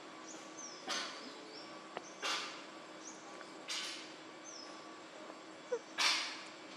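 Outdoor forest ambience: four short bursts of rustling noise a second or two apart, the last the loudest, with faint, brief falling bird chirps between them.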